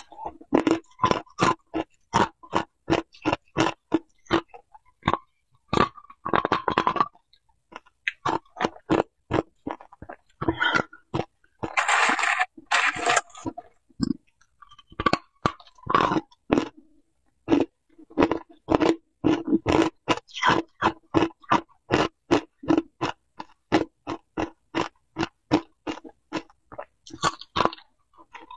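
Hard ice cubes being bitten and chewed, close-miked: a rapid run of crisp crunches, about four a second, with a couple of longer rough crackling stretches.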